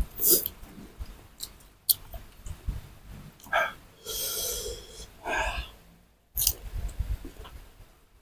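Crisp young green mango being bitten and chewed, with scattered crunches and clicks, and a breathy rush of air of about a second, about four seconds in.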